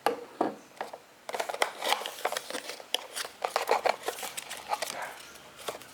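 Packaging being handled and opened by hand: a quick string of sharp clicks and scratchy rustles that thickens about a second in.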